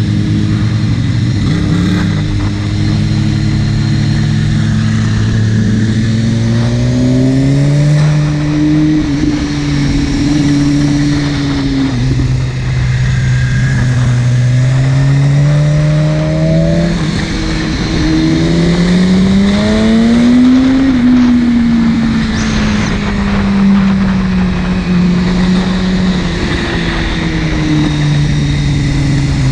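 Buell 1125CR's V-twin engine running under way. Its note climbs steadily as the bike accelerates and drops back as it eases off, twice, over a steady rush of road and wind noise.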